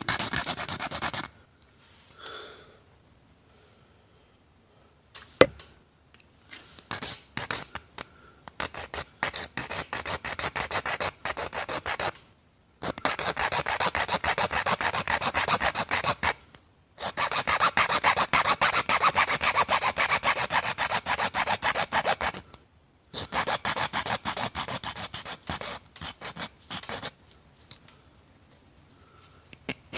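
A saw cutting through the end of a too-long metal bolt, in spells of fast back-and-forth strokes with short pauses between them.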